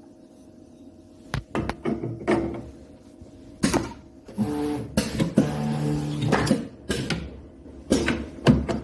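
Square-bottle labelling machine at work: a steady hum, then a run of sharp mechanical clacks and short hissing bursts, with a steady buzzing motor tone for about two seconds in the middle and more clacks near the end.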